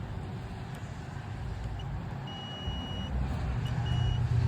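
A steady low engine-like rumble that grows louder about three seconds in, with a few short high-pitched electronic beeps over it.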